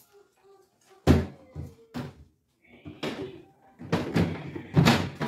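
Knocks and clunks of refrigerator shelves and drawers being handled and set down. The loudest knock comes about a second in, with a quick run of knocks near the end.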